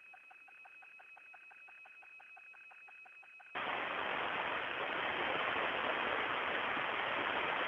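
Space-to-ground radio channel: faint static carrying two steady tones and a quick pulsing of about five beats a second, then, about three and a half seconds in, the channel opens suddenly into loud, steady static hiss.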